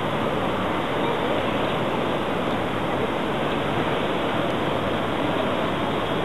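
Steady, even rushing background noise around a running model railway layout, with no single sound standing out.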